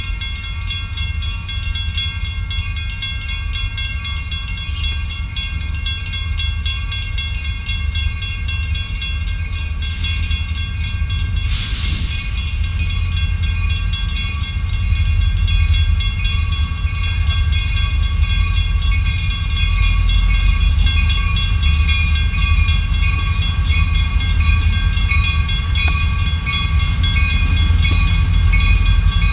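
Two EMD SD40-2 diesel locomotives heading a freight train approach, their deep engine rumble growing steadily louder. Over it run steady high ringing tones that begin to pulse in the second half, and a brief hiss sounds about twelve seconds in.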